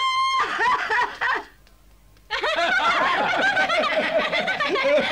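Dubbed cartoon characters laughing. A laugh in the first second and a half breaks off for a short silence, then several voices laugh together.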